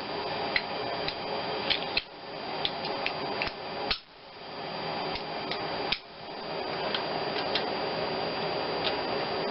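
Scattered light metallic clicks and taps from work on the G10 engine's stuck timing-belt tensioner, which stays locked despite its adjuster being loosened. A steady fan-like hum runs underneath.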